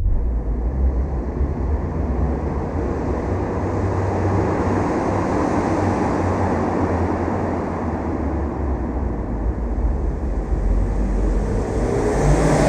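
Car running in an underground car park, a steady low engine rumble with tyre and road noise, growing louder and brighter near the end.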